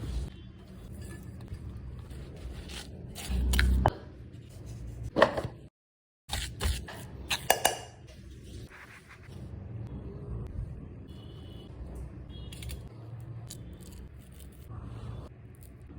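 Kitchen utensils scraping and clattering against cookware, with several sharp knocks. The sound drops out completely for about half a second around six seconds in.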